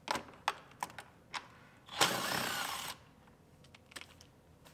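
A few light clicks, then a cordless drill/driver runs for about a second, backing out a center-console screw.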